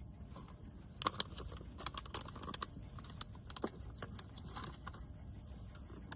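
A quick, irregular run of light clicks and taps for about four seconds, the sharpest about a second in, over a steady low rumble.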